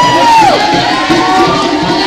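A large crowd shouting and cheering, with one loud whoop that rises and falls right at the start and another long call about a second in. Music plays underneath.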